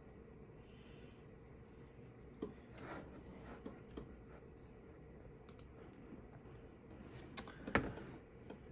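Quiet room tone with a few faint, scattered clicks and rustles of small handling, such as a mouse or things being moved on a desk.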